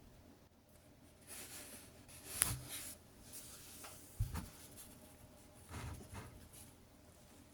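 3D-printed plastic differential gear model being turned and handled: irregular plastic scraping and clicking, with a sharp click about two and a half seconds in and a knock a couple of seconds later.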